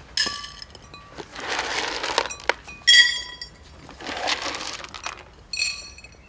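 Ceramic feeding bowls clinking three times as they are set down and knocked, the middle clink the loudest, with dry rabbit food rattling as it is poured into the bowls from a plastic scoop in between.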